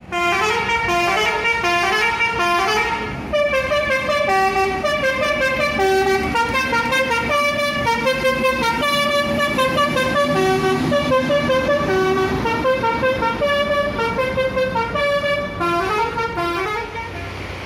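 Intercity bus's multi-tone musical air horn (a "telolet" horn) playing a tune. Several horn notes sound together and step up and down a few times a second, with a short break about three seconds in.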